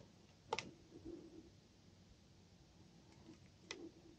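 Near silence: room tone with a few faint clicks, the clearest about half a second in and near the end. The clicks are hands handling a tennis racket while wrapping a replacement grip onto its handle.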